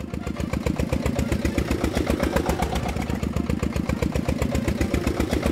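Engine running steadily at idle with a rapid, even chug of about ten beats a second, starting abruptly: an engine sound laid over the non-motorised toy wheel loader.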